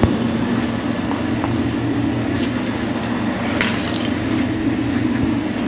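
Steady low mechanical hum of a machine running in the garage, with a few brief clicks and rattles of small parts and tools being handled, about two and a half seconds in and again a second later.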